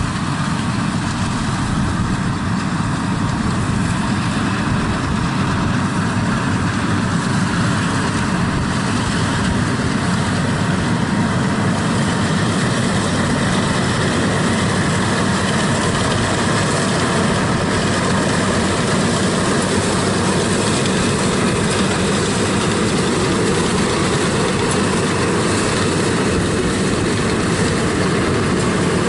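Yanmar AW82V combine harvester running steadily as it cuts rice: its diesel engine and threshing machinery working together under load.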